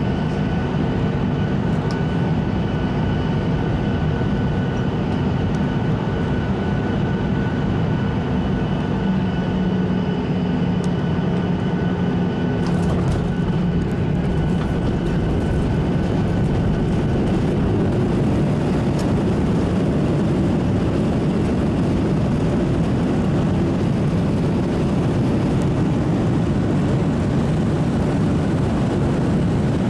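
Cabin noise of a Boeing 737-800 with CFM56 jet engines: a steady engine whine with high fan tones on final approach. About thirteen seconds in the airliner touches down with a few brief knocks, and the whine gives way to a broader, louder rumble as it rolls down the runway.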